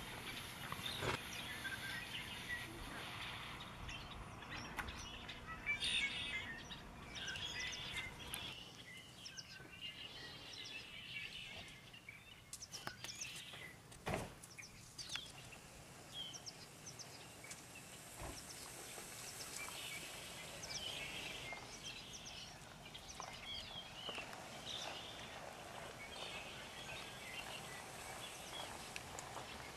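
Faint outdoor ambience of small birds chirping on and off, with a few sharp knocks or snaps.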